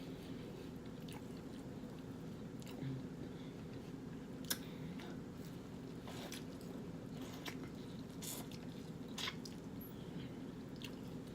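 A person eating seafood boil close to the microphone: wet chewing and mouth smacks, with scattered sharp clicks, over a steady low hum.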